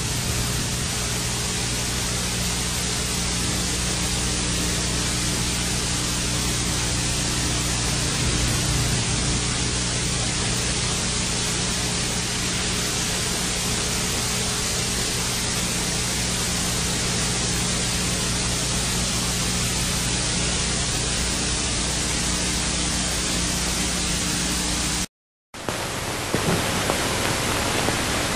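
Steady hiss with a low electrical hum underneath, the noise floor of old analogue video footage that carries no sound of its own. It cuts out completely for a moment about 25 seconds in, then comes back as a slightly different hiss.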